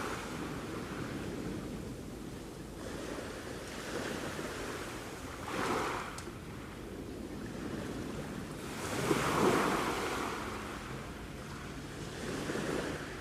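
Sea waves washing ashore in a steady hiss, with surges as waves break about six seconds in, a bigger one around nine to ten seconds, and a smaller one near the end.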